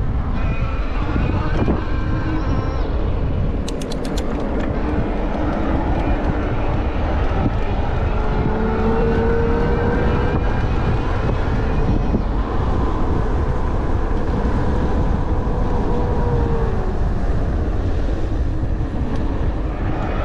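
Wind buffeting on an uncovered handlebar camera microphone while riding a Bafang M620 mid-drive e-bike on full pedal assist. Under it, the freshly greased motor gives a faint whine that rises and falls with speed. There is a quick run of clicks about four seconds in.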